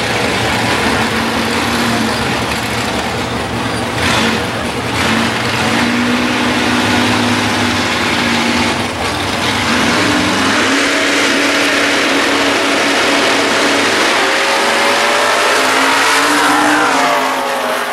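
Two drag race cars' engines idling and rumbling at the starting line, with short revs. About ten seconds in they launch, and the engines run at full throttle down the strip, their pitch rising through the gears.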